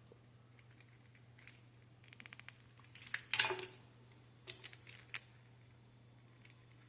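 Metal clicks and clinks from handling a Kryptonite Keeper 785 chain lock and its key: a quick run of small ticks about two seconds in, a louder metallic jingle a second later, then a few scattered clicks.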